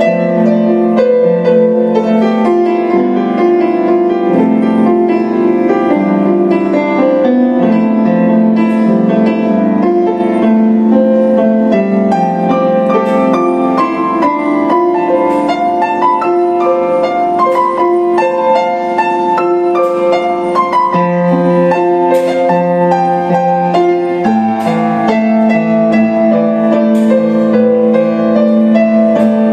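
Kawai grand piano being played, a continuous flow of notes and chords that ring on into one another without a break.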